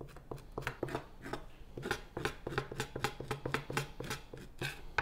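A kiritsuke chef's knife scraping the fat off the underside of raw chicken thigh skin against a wooden cutting board, in quick short strokes, about four a second.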